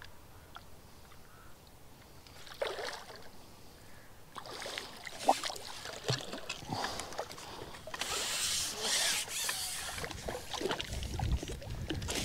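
Water splashing and sloshing in irregular bursts, starting about two and a half seconds in and busiest around the middle and near the end: a big hooked fish thrashing at the surface of the margin.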